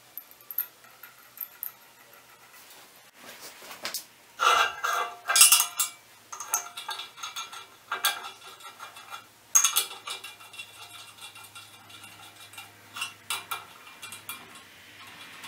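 Steel cap screws and a hex key clinking and scraping against a steel plate as a bearing flange is bolted down by hand: scattered sharp metal clicks, loudest in a cluster about four to six seconds in, with single louder clinks near eight and ten seconds.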